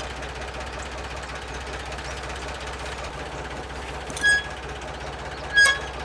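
Tractor engine idling steadily, with two short, ringing metallic clinks about four and five and a half seconds in, a steel wrench knocking against the hay rake's metal.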